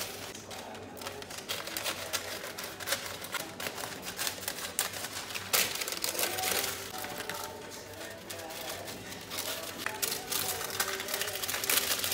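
Sheets of baking paper rustling and crinkling in irregular crackles as they are handled, folded and pressed into the cups of a metal muffin tin.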